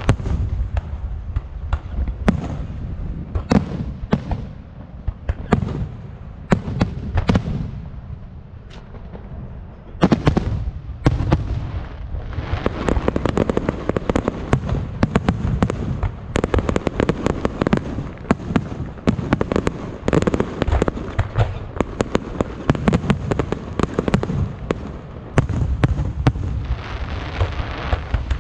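Fireworks going off in a barrage of sharp bangs and crackling. The bangs thin out for a few seconds about a third of the way in, then return as a dense, rapid volley.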